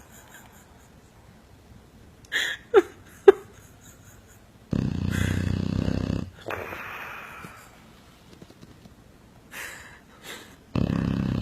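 Dog snoring: a loud, low, buzzing snore lasting under two seconds, then a softer breath, and a second loud snore starting near the end. A few short squeaky snuffles come a couple of seconds before the first snore.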